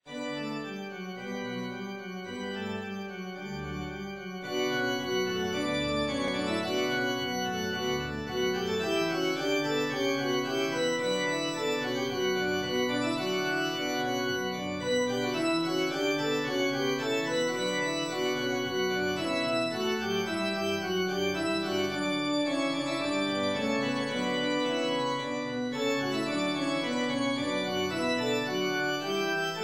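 Organ music: a slow composed piece of held chords with moving inner lines and low bass notes, growing fuller and louder about four seconds in.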